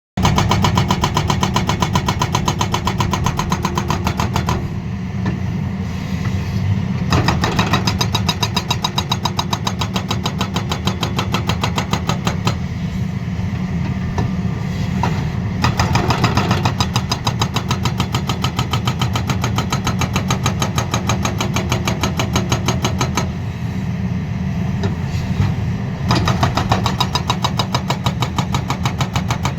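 Pultvizor SV240 Prime hydraulic breaker on a JCB JS210 excavator hammering laterite rock in a rapid, even run of blows. The hammering comes in several spells and eases off briefly a few times, over the excavator's diesel engine running steadily.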